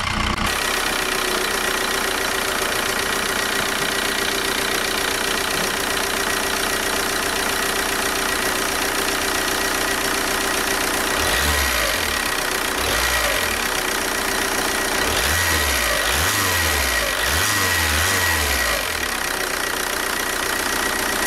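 Four-cylinder diesel engine with a rotary injection pump running. Its speed rises and falls several times in the second half. This sound is normal for the engine as built.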